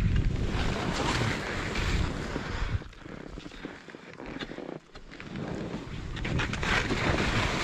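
Wind buffeting a skier's camera microphone, with the hiss of skis sliding over snow. The rush eases from about three seconds in, then builds again near the end.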